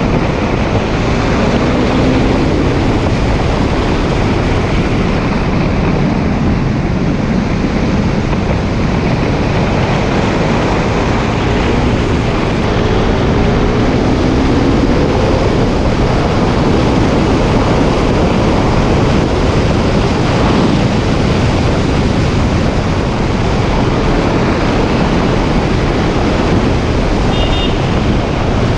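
Wind rushing over the microphone at riding speed, with the KTM Duke 390's single-cylinder engine on its original exhaust running underneath; its pitch climbs twice as the bike accelerates.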